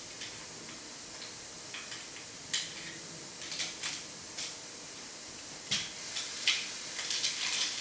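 Scattered light clicks and knocks as the carriers and belt parts of a motorized curtain track are handled and slid in the track. The clicks come more often near the end.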